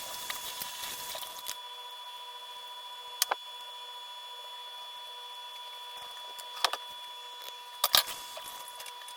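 A few short sharp clicks and knocks, about three seconds in, again near six and a half seconds and twice close together around eight seconds, over a steady hiss with a faint steady whine.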